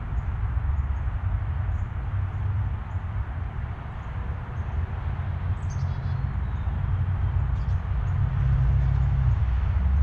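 A steady low rumble, with a few faint high bird chirps about six seconds in and again near eight seconds.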